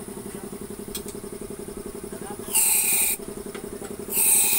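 Honda Supra X 125's single-cylinder four-stroke engine idling. The throttle is blipped twice, about halfway through and near the end. Each time it gives a short honking 'ngok' rather than revving up freely, the carburettor fault the bike was brought in for.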